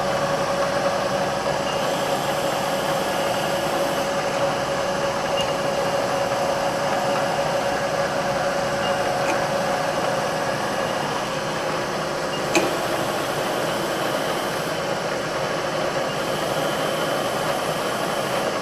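Supermax knee mill running a bolt-hole-circle program under its Prototrak MX2 CNC control, with a steady hum from the machine's spindle and axis drives. One sharp click about twelve seconds in.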